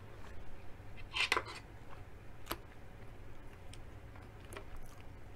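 Close-up eating sounds: quiet chewing and mouth sounds, with a few sharp clicks, the loudest about two and a half seconds in. Near the end a metal fork clicks in a glass bowl as coleslaw is scooped up.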